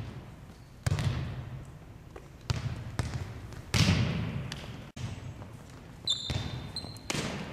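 A volleyball is struck and bounces on a hardwood gym floor: about six sharp smacks a second or so apart, each ringing out in the hall, the loudest about four seconds in. A short high squeak comes around six seconds in.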